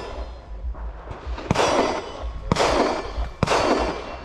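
Gunshots, three about a second apart, each followed by a long echo.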